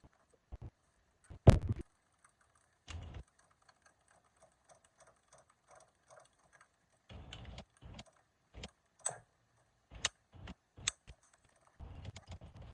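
Irregular clicks and knocks of tools and parts being handled during installation work: a sharp knock about a second and a half in, a dull thud a little later, then a run of light clicks and taps in the second half.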